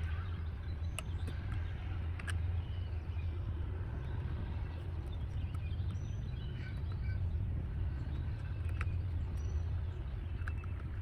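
Outdoor background: a steady low rumble, with a few short bird chirps and scattered light clicks.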